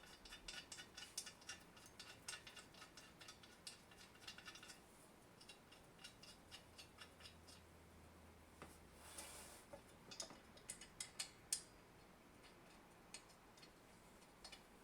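A wrench working bolts on a bench drill press gives a quick run of faint metal clicks and ticks for about five seconds, then a few sharper clicks about ten seconds in.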